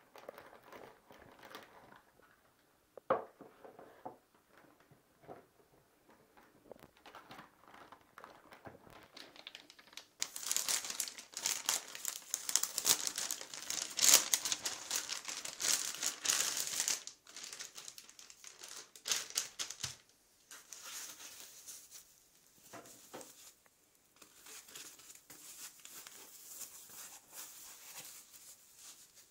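Plastic packaging crinkling and rustling as hands work a clear plastic bag and a pink anti-static bag, loudest from about ten to seventeen seconds in. A single sharp knock about three seconds in, with quieter handling noises around it.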